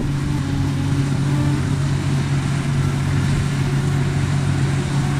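A farm machine's diesel engine running at a steady speed, a constant deep hum with no change in pitch.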